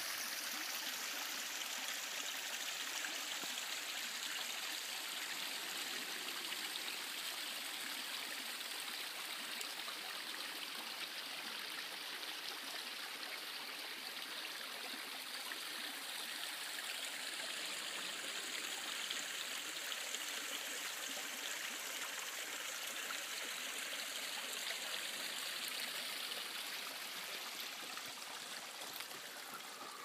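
Steady rushing and babbling of a forest stream flowing over rocks, easing off a little near the end.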